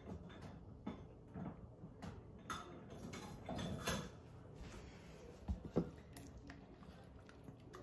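Quiet kitchen handling with scattered light knocks and rustles. Later, a utensil clicks and scrapes against a plastic measuring cup as a liquid marinade is stirred.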